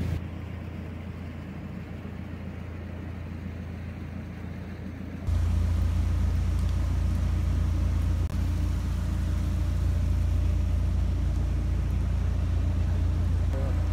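Narrowboat's diesel engine running steadily, a deep, even hum. About five seconds in it suddenly gets louder and stays so, with a brief dropout a few seconds later.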